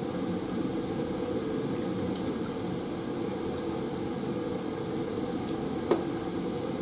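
Steady fume hood exhaust fan noise. About six seconds in, a single light click as a glass Erlenmeyer flask is set down on the plastic housing of a UV lamp.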